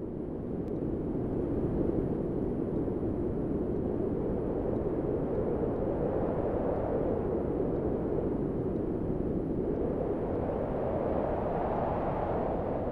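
Steady rainstorm ambience, rain and wind making a dense, even noise that swells slightly around the middle and again near the end.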